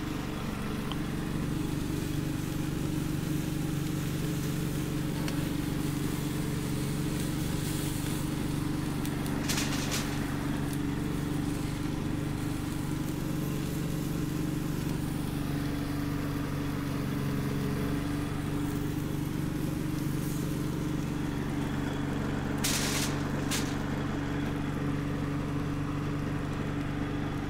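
A small engine running steadily with an even low hum, with two brief hisses about ten seconds and twenty-three seconds in.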